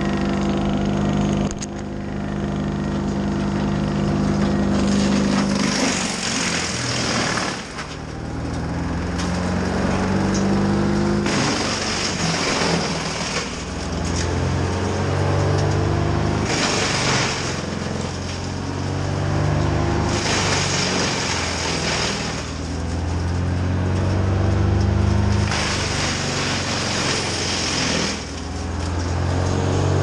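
Heavy machinery at work: a grapple-saw crane rig's engine revving up and down again and again, with a high-pitched burst of noise every four to five seconds.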